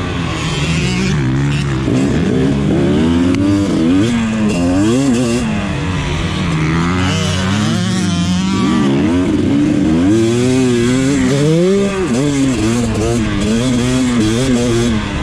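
KTM motocross bike's engine, heard on board, revving up and dropping back again and again as the throttle is worked and gears are shifted around a dirt track. The revs fall away twice, about halfway through and again a few seconds later, before climbing once more.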